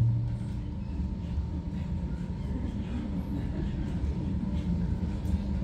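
Low, steady rumble with a faint steady hum above it: background room noise of a hall, with no voice.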